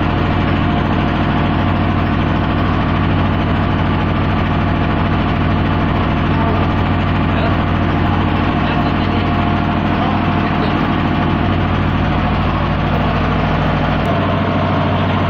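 Steady, loud drone of a running engine, low and even throughout; its deepest rumble drops away about fourteen seconds in.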